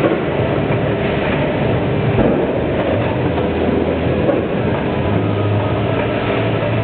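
BPS 14-head combination weigher running, a steady mechanical rattle with a low hum under it as shredded cheese is fed through its hoppers.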